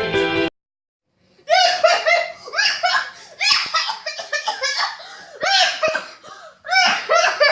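Music cuts off about half a second in. After a second's pause, a person laughs hard in several bursts of quick, voiced 'ha' pulses.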